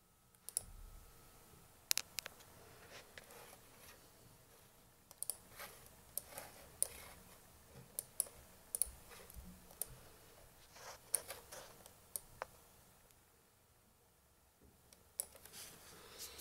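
Irregular clicks from a laptop's touchpad and keys as it is operated, a dozen or so sharp clicks at uneven intervals with a short cluster near the end.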